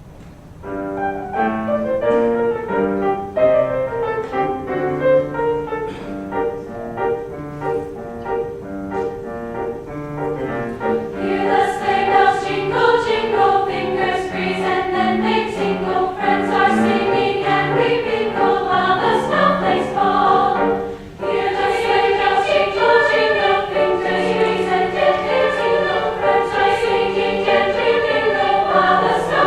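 A choir singing a piece with accompaniment. About a third of the way in, high, bright jingling strokes of sleigh bells join on the beat.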